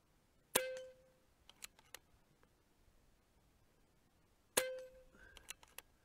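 Air rifle pellets striking a hanging steel gong target twice, about four seconds apart. Each hit is a sharp clang with a short ring that fades within half a second, followed by a few lighter clicks.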